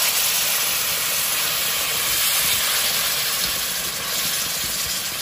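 Hot water poured into a hot kadhai of frying pork and chillies, hissing and sizzling loudly as it turns to steam, easing off a little toward the end.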